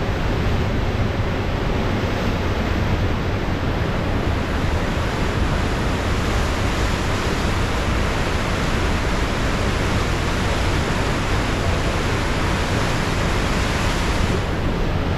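Pacific Ocean surf rushing steadily, a dense hiss over a low rumble. The hiss grows brighter in the middle and its high end falls away sharply near the end.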